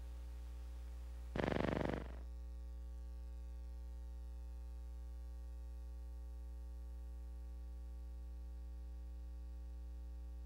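Steady electrical mains hum with its overtones on the soundtrack of a silent film, with one louder burst of about half a second roughly a second and a half in.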